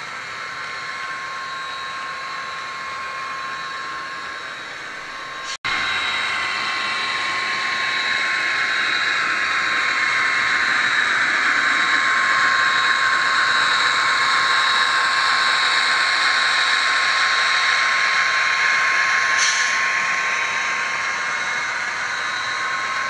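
HO-scale model train running on layout track: a steady whine from the locomotive motor and the wheels on the rails. It cuts out briefly about five seconds in, then grows louder as the train comes near and eases off toward the end.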